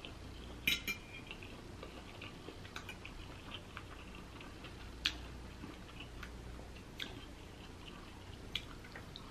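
Close-miked chewing of fried rice with soft, wet mouth clicks, broken by a few sharp clicks of a metal fork against the plate; the loudest comes about five seconds in.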